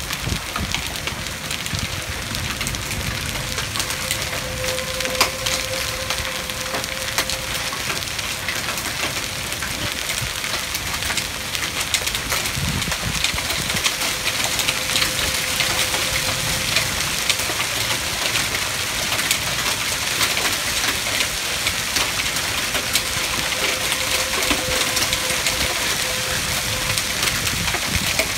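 Heavy rain and hail pelting down, a dense hiss scattered with many sharp ticks of hailstones striking, getting slightly louder about halfway through. A distant tornado siren sounds faintly underneath as a steady tone that swells and fades.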